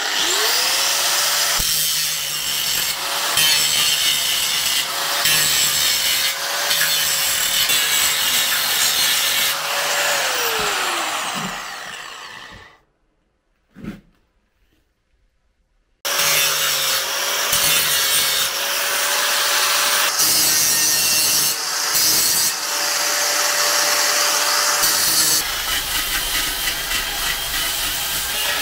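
Handheld angle grinder working metal, its motor whine spinning up at once and then holding steady under a harsh abrasive rasp. It winds down about eleven seconds in, falls nearly silent for about three seconds, then starts again abruptly and runs on.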